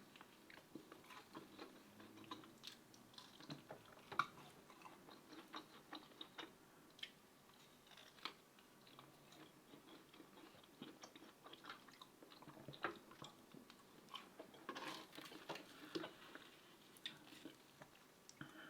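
Faint chewing and biting: a person eating, with irregular soft wet clicks and small crunches from the mouth.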